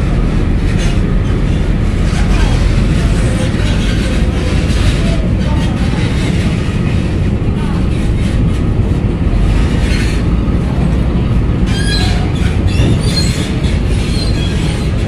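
Steady, loud low rumble of a heavy-haul truck towing a multi-axle lowbed trailer loaded with a coal rail wagon as it rolls past over the ferry's steel ramp.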